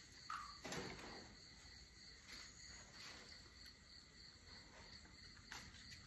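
Near silence: faint room tone with a thin, steady high-pitched tone and a few soft clicks.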